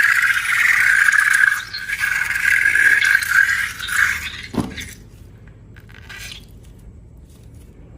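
Rubber balloon squealing as air is let out through its stretched neck: a loud, steady, high squeal for about four seconds, ending in a quick falling tone about four and a half seconds in. Soft handling clicks follow.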